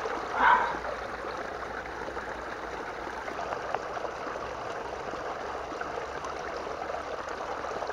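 Steady flow of a small stream with water sloshing in a green plastic gold pan as it is swirled and dipped to wash out the gravel, with a brief louder splash about half a second in.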